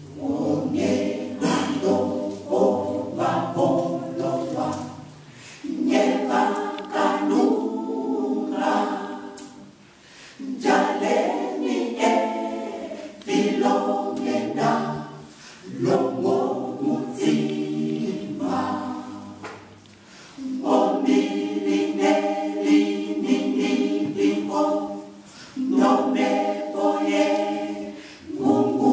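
Mixed choir of men and women singing a cappella, with no instruments. The singing comes in phrases of about five seconds, with short breaks between them.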